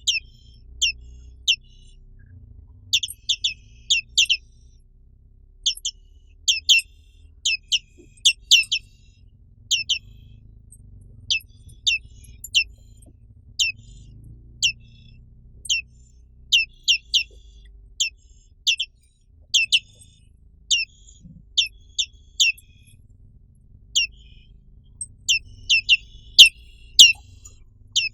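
Black-capped white-eye (Zosterops atricapilla) calling: short, high, sharp down-slurred chirps, some single and some in quick runs of two to four, repeating about every second. A faint low hum lies underneath.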